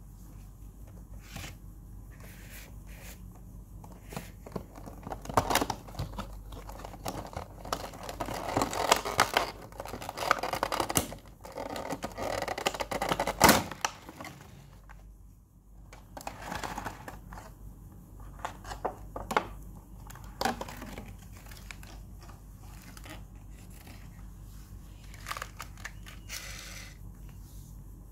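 Cardboard box and clear plastic blister packaging being opened and handled: irregular crinkling, tearing and rustling with scattered clicks. The handling is densest and loudest in the first half, with one sharp crackle near the middle, then thins to occasional quieter clicks and rustles.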